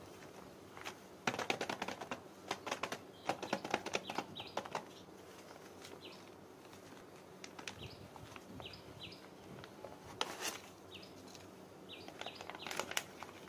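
Clear plastic packaging of a set of pull-back toy cars crinkling and rustling as it is handled and turned over, in bursts about a second in, around ten seconds in and near the end. Small birds chirp faintly in the background.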